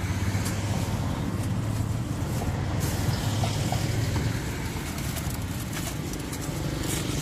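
Steady low motor rumble, with faint taps of plastic cups and lids being handled.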